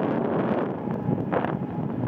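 Wind buffeting the microphone: a steady rushing noise with quick, irregular gusty flutter.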